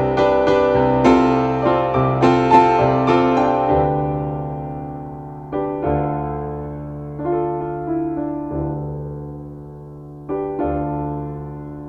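Background piano music: a run of quick notes for about four seconds, then slower chords struck every second or two and left to fade.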